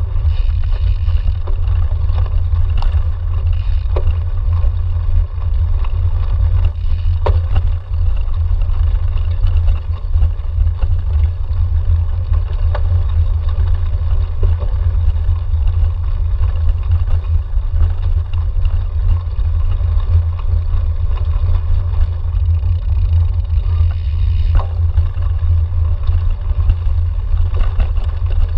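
Steady low rumble of a cyclocross bike rolling over bumpy grass, heard through a camera clamped to the handlebars, with a few sharp knocks from the bike jolting over bumps.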